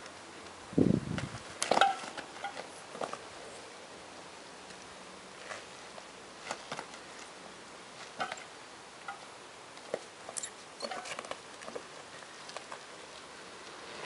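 Unicycle tyre and pedals working on asphalt: scattered light clicks, taps and scuffs, with a low thump about a second in.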